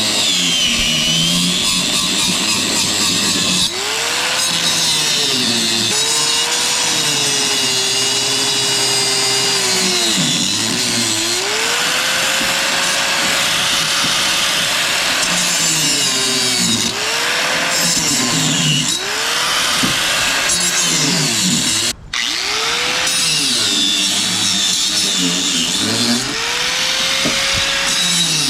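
Angle grinder cutting a steel weld off the nut on a lawn tractor's deck pulley. Its motor pitch keeps sagging as the disc bites and climbing back as it eases off, with a brief break a little over 20 seconds in.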